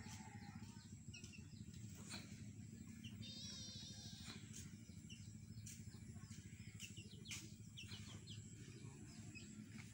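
A chick peeping faintly: short high peeps scattered through, with one wavering trill about three seconds in, over a steady low rumble.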